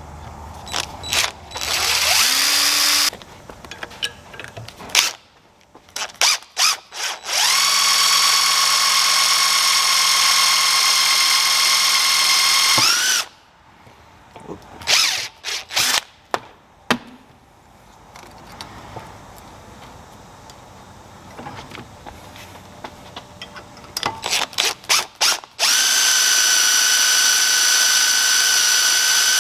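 Power drill drilling out the rivet on a zero-turn mower's hand throttle assembly, running in three longer runs of several seconds each with short trigger blips between them.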